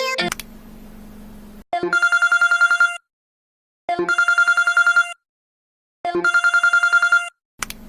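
Telephone ringtone: three rings, each a rapid trill on one steady high pitch lasting just over a second, with about a second of silence between them. A faint low hum comes before the first ring and again at the end.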